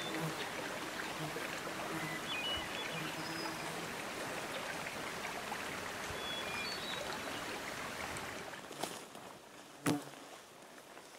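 Steady rushing water with an insect buzzing on and off, and a few brief high peeps. Near the end the water sound drops away and two sharp snaps stand out, the second louder.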